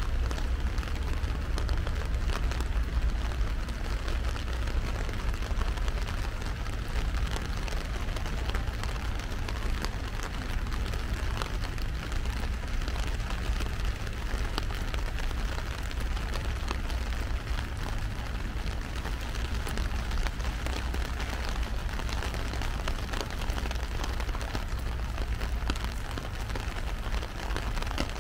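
Heavy rain falling on an umbrella held overhead: a dense, steady patter of drops over a steady low rumble.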